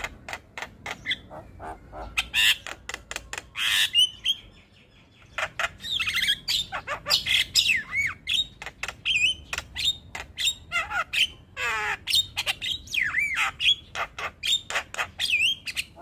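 Javan myna singing a loud, varied song: rapid clicking notes and a harsh squawk, then after a brief pause a dense run of whistled rising and falling notes, warbles and rattling chatter.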